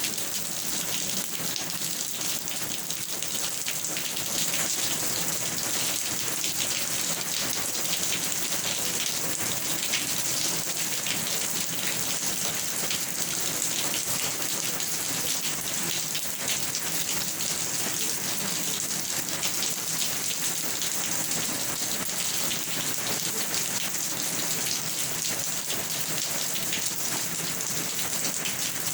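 Steady rain falling, a dense even patter of raindrops on a surface.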